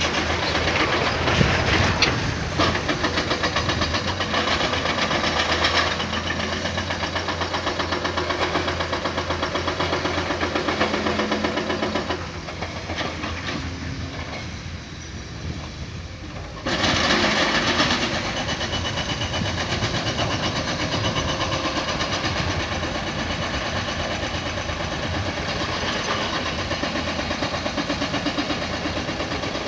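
Hydraulic excavator's diesel engine running under load while digging rock. The engine note drops for a few seconds near the middle, then comes back up sharply.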